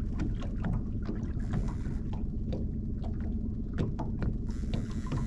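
Outboard motor of a small fishing boat running steadily at trolling speed, with water splashing against the hull in frequent short irregular slaps.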